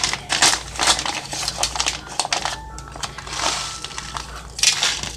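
Crinkly plastic snack bag being handled and opened, in irregular bursts of sharp rustling crackles that are thickest in the first couple of seconds, with shorter bursts later on.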